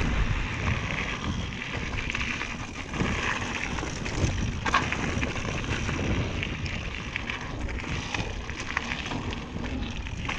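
Cannondale Scalpel mountain bike being ridden down forest singletrack: tyres crackling over the dirt, and the chain and bike parts rattling with scattered clicks and a few sharper knocks. Steady wind rumble runs on the action-camera microphone.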